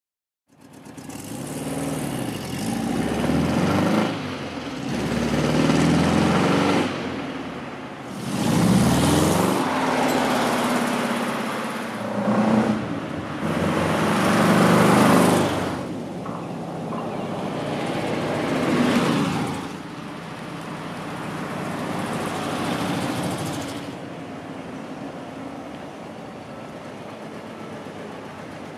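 1969 Porsche 912's air-cooled flat-four engine driving past several times, its pitch climbing and dropping back as it accelerates through the gears. The sound swells and fades repeatedly, then settles to a quieter steady run near the end before cutting off.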